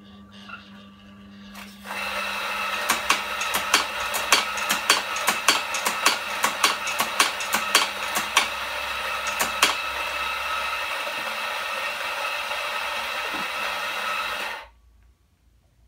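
Macap M4 coffee grinder starts about two seconds in and runs steadily, grinding beans. Over it come quick clacks of the doser lever being flicked, about two or three a second for several seconds. The motor then cuts off suddenly near the end.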